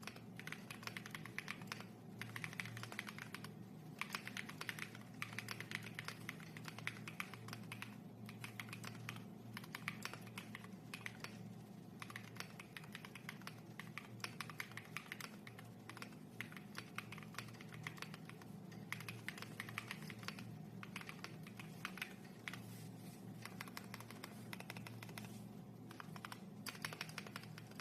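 Typing on an Akko ACR64 mechanical keyboard fitted with Bsun X R2 switches: a fast, continuous run of keystroke clacks, broken by a few short pauses.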